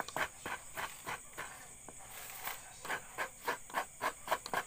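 A run of short, sharp scraping or tapping strokes from hand work, irregular, about two or three a second. Crickets drone steadily behind.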